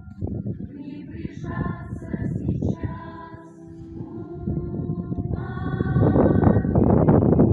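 An animal's long drawn-out wailing calls, several held notes that grow louder toward the end, with wind buffeting the microphone throughout.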